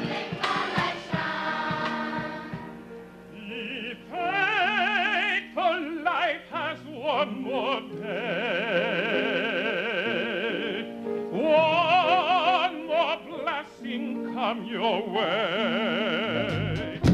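A choir singing, with a solo voice over it holding long notes with wide vibrato.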